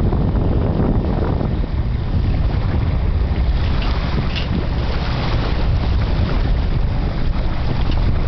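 Wind buffeting the microphone aboard a small boat on the open sea, a steady low rumble with a hiss above it.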